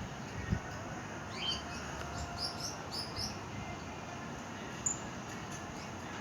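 Small birds chirping, a quick run of short high chirps between about one and three and a half seconds in, over a steady rush of wind.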